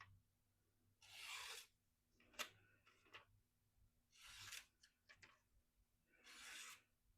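A Spyderco Endura 4's VG-10 blade, sharpened to a toothy low-grit edge, slicing through rope: three short cuts about two seconds apart, with a sharp click between the first and second.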